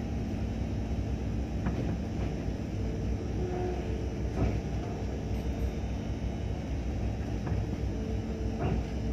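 Ship engine machinery running with a steady low rumble and a faint steady hum, with a few faint ticks.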